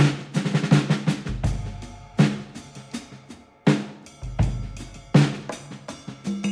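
Background music led by a drum kit, with sharp snare and bass drum hits over a low bass line.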